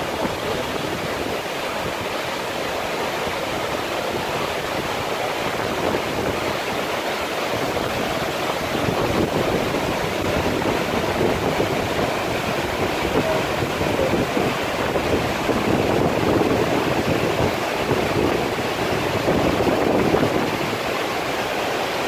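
Kapuzbaşı waterfall's water pouring down the cliff onto rocks, a steady dense rushing roar that grows a little louder about eight seconds in.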